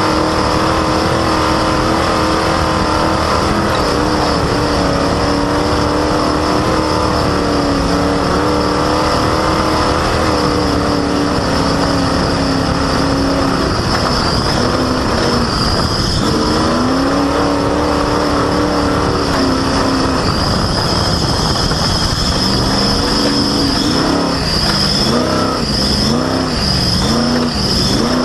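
Off-road race vehicle's engine running hard, its revs holding and dipping with the throttle, then swinging up and down several times in quick succession near the end. A loud, squeaky drive belt squeals as a steady high whine over the engine, with constant wind and road noise at the front bumper.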